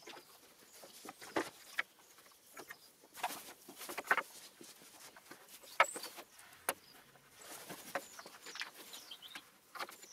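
Scattered light knocks and clicks with short scratchy strokes: a small square being set down and slid along a pallet-wood board while a pen marks lines on the wood.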